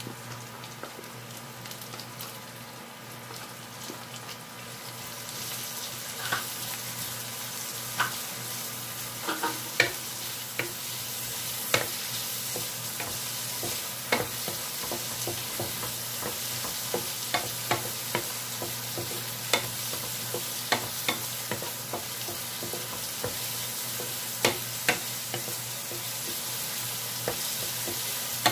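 Chopped onions and garlic frying in hot oil in a metal pan, the sizzle growing louder about five seconds in. Sharp taps and scrapes of a wooden spatula against the pan come at irregular moments as the onions are stirred.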